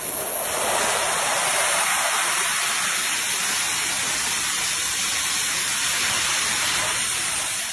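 Small jet turbine engines of a jet suit running: a steady, loud rushing roar that swells in the first second and then holds.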